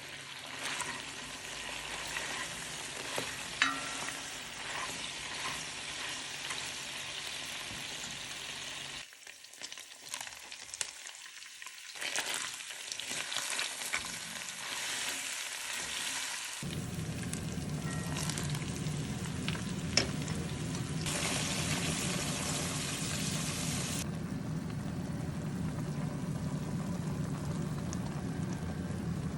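Food frying in hot oil for plov, a steady sizzle with a few sharp clicks of a utensil against the pot as it is stirred. The frying drops quieter for a few seconds about nine seconds in, and from about the middle on a deeper, fuller sizzle takes over.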